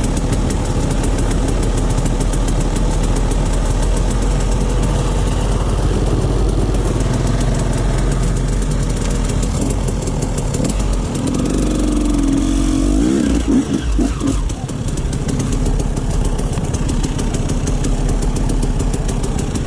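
Dirt bike engine running steadily, with the revs climbing and dropping a little past the middle.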